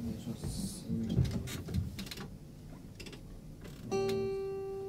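Acoustic and electric guitars played loosely: scattered plucked notes and light strums, then a single clear note held for about a second, about four seconds in.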